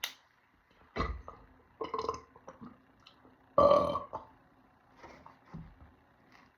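A man belching several times in a row, burps brought up by carbonated soda gulped down fast. The loudest and longest burp comes about three and a half seconds in, with smaller ones before and after.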